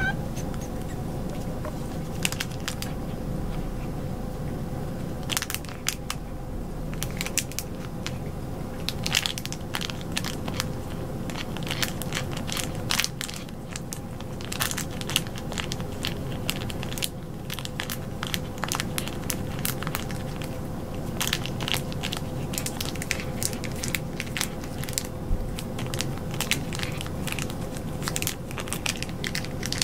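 A silvervine (matatabi) powder sachet crinkling and crackling in irregular quick bursts as a cat licks, bites and claws at it, over a faint steady hum.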